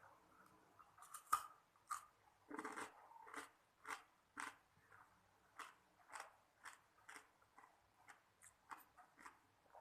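Ice cubes being bitten and chewed close to the microphone: a string of sharp, crisp crunches at an irregular pace, about one or two a second.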